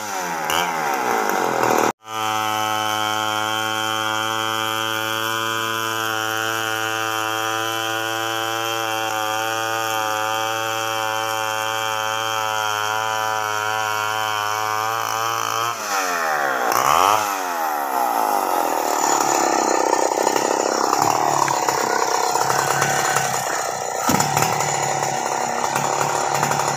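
Two-stroke chainsaw ripping lengthwise through a big Antipolo log (chainsaw milling into boards), running at a steady pitch under load. Briefly cut off about two seconds in; around sixteen seconds the engine speed dips and climbs back, after which the sound is noisier and less even.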